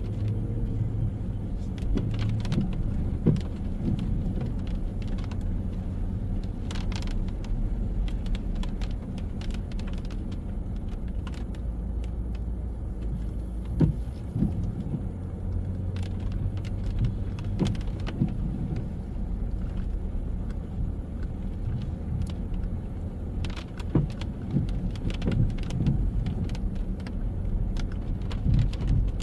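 Street traffic on a rainy day: cars running and passing as a steady low rumble, with scattered sharp clicks and knocks.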